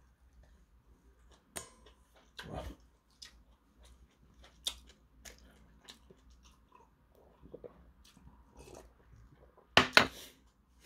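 Quiet chewing, swallowing and small mouth clicks from a person eating cup ramyeon and drinking makgeolli from a glass. A single brief louder sound comes near the end as the glass goes back down.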